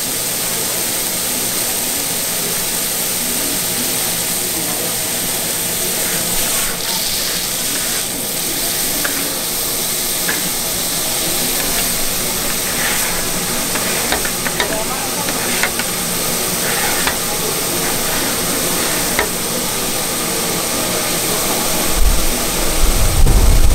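Food sizzling steadily on a hot street-stall griddle, with a metal spatula clicking and scraping as the food is stirred and turned. A few heavy low thumps come in near the end.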